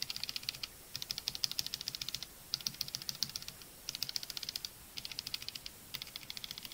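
Typing on a mechanical keyboard fitted with stock Outemu red linear switches: quick runs of keystroke clacks in short bursts with brief pauses between them. There is no audible spring ping.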